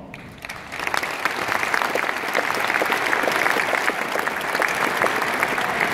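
Large audience applauding, building up over the first second and then holding steady.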